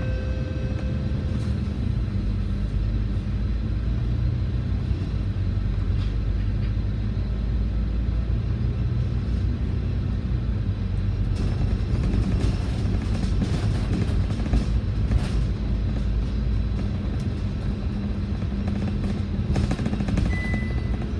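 Volvo B9TL double-decker bus's diesel engine and driveline running steadily as the bus drives along, heard from inside the cabin, with bursts of clicking and rattling in the middle and a short high beep near the end.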